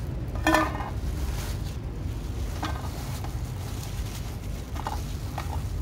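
Fried pork shaken out of a plastic bag into a metal bowl, the bag rustling and the pieces clinking in the bowl, while cats meow in short calls: a loud one about half a second in and a few fainter ones near the end. A steady low rumble runs underneath.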